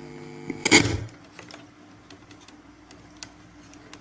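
A loud thump about three-quarters of a second in as the second microphone for the portable speaker is picked up and connected, then a faint steady hum with scattered small handling clicks.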